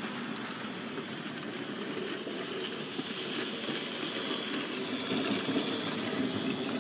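Model railway locomotive running along the layout track: a steady whir from the small electric motor and wheels rolling on the rails, with a faint high whine in the middle.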